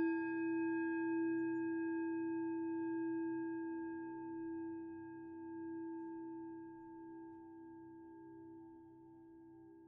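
A struck singing bowl ringing out in one long, slowly fading tone, with fainter steady low tones beneath.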